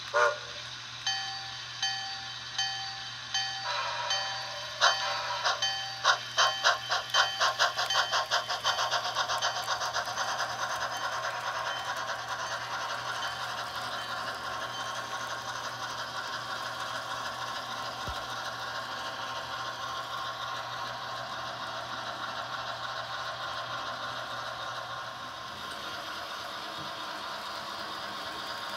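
Bachmann Echo Valley Express HO steam locomotive's onboard DCC sound: a short whistle blast, then the bell ringing about twice a second. Synchronized chuffs, four per wheel turn, quicken as the engine pulls away and blend into a steady run of chuffing and wheel-on-track rattle that softens as the train moves off.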